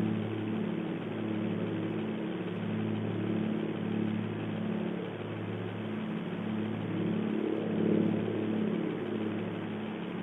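Airplane flying over: a steady engine drone with a low pitched hum that swells and fades in a slow, even beat about every second and a quarter.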